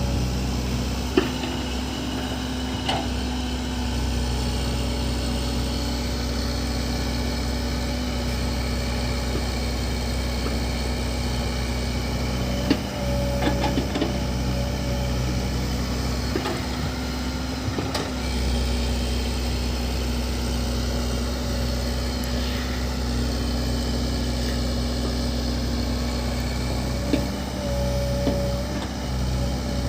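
JCB backhoe loader's diesel engine running steadily under working load, with a few sharp knocks from the machine and a brief higher whine twice, once about halfway and once near the end.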